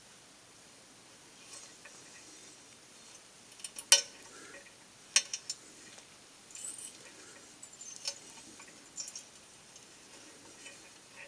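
Scattered sharp metallic clinks and clicks of small steel tools being handled against metal, with one short scrape, while a broken screw is being worked out of an alloy wheel barrel.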